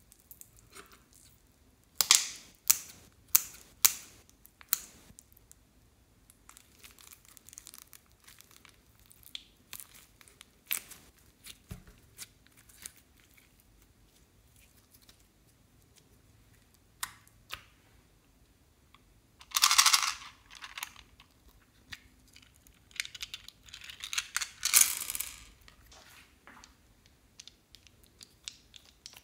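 Close-up hand sounds of slime play: sticky crackling and tearing as slime is squeezed and stretched, with scattered sharp clicks and taps. A few sharp clicks come close together early on, and the loudest crackling comes in two stretches about two-thirds of the way through.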